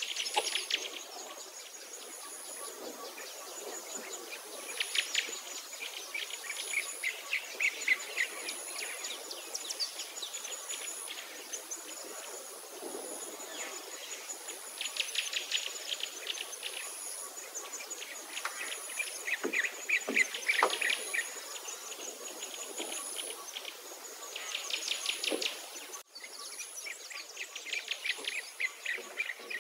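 Birds singing in repeated rapid trills and chirp series, over a steady high insect chirr that pulses about once a second.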